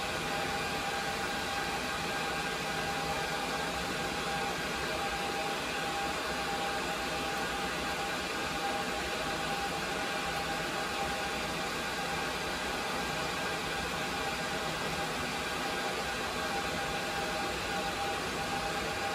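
Cooling fans of running rack-mounted server equipment: a steady whir over an even hiss, with a few thin steady whining tones in it.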